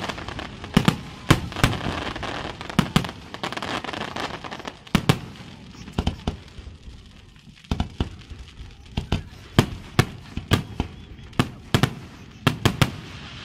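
Aerial firework shells bursting in a display: an irregular run of sharp bangs, several a second at times, over a hiss that thins out about halfway through.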